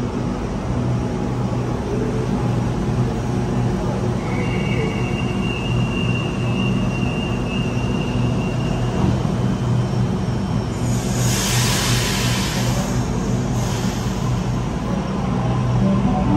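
Sydney Trains double-deck electric train standing at the platform with a steady low hum from its onboard equipment. About eleven seconds in, a loud hiss of air lasts roughly three seconds.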